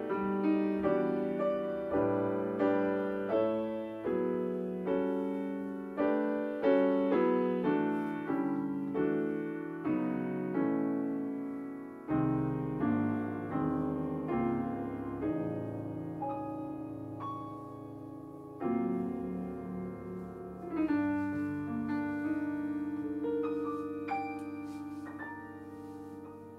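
Solo grand piano playing a slow jazz ballad: chords and melody notes struck one after another, then about two-thirds of the way in a closing chord held and left to fade, with a few soft high notes on top.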